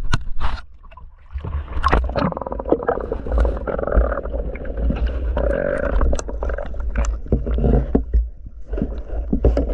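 Water sloshing and splashing around a snorkelling spearfisher's camera as he goes under, then muffled underwater noise with a low rumble and scattered clicks and knocks.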